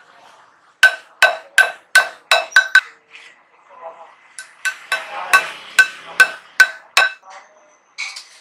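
Hammer tapping a small steel pin into a hole in a steel flywheel: sharp ringing metal strikes, a quick run of about seven, a short pause, then about eight more at an even pace.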